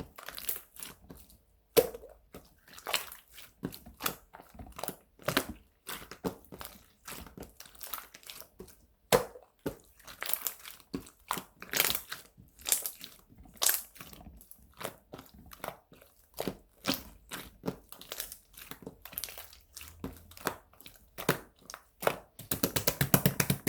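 Purple marbled slime being squeezed, poked and stretched by hand, giving irregular crackling pops and squelches. Near the end comes a quick run of small pops.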